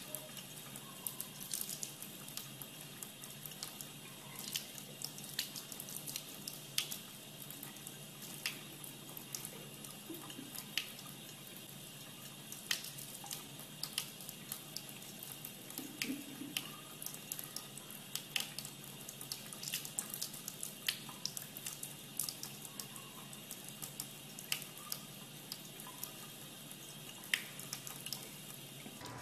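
A tap running a thin, steady stream of water into a sink basin, splashing with irregular sharp drips and ticks.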